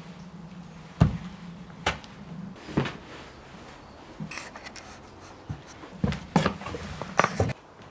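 Footsteps over a wooden door sill and bare floorboards: irregular knocks and scuffs, the sharpest about a second in and a cluster near the end, with a brief scrape midway.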